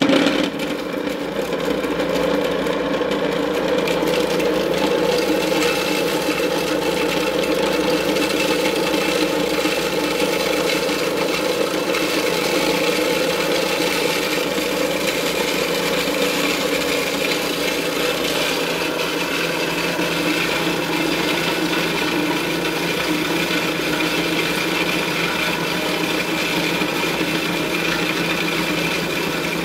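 Portable electric dry mill grinder starts up suddenly and runs steadily, grinding cracked corn on a second pass through the mill.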